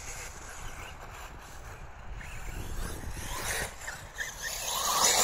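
Electric 1/8-scale RC buggy running on the astroturf track, its motor whining and tyres hissing. It grows steadily louder as it approaches and is loudest as it passes close at the very end.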